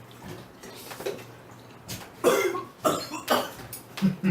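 A man coughing hard, four harsh coughs in quick succession starting about halfway through. It is a coughing fit set off by the burn of extra-spicy instant noodles.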